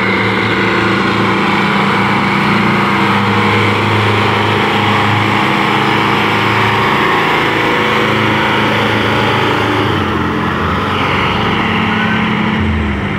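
Farm tractor's diesel engine running steadily under load as it hauls a trailer piled high with sugarcane. Its low note drops near the end as it passes.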